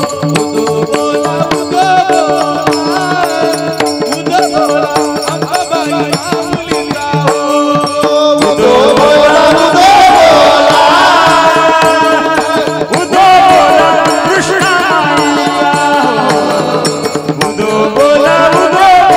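Devotional kirtan chanting: voices singing a wavering melody over steady held notes, with small hand cymbals (taal) and a barrel drum. The singing swells louder and fuller about eight seconds in.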